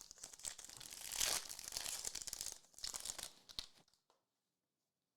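Plastic foil wrapper of a Prizm trading-card pack being torn open and crinkled for about four seconds, loudest a little over a second in, then stopping.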